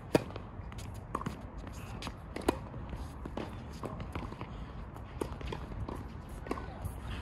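Tennis rally on a hard court: a serve struck close by opens it, the loudest hit, followed by fainter returns from the far end, ball bounces and another sharp racket hit about two and a half seconds in. Light shoe steps on the court come between the strikes.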